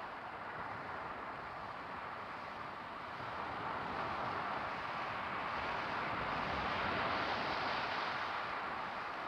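Steady rushing background noise with no distinct events, growing louder about a third of the way in.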